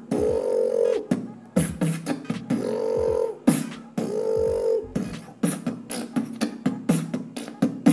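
Beatboxed lip bass: a light lip-oscillation buzz with a hummed vocal tone layered over it, repeated in short phrases and punctuated by sharp snare and hi-hat sounds. From about five seconds in, it turns into a quicker run of crisp percussive clicks.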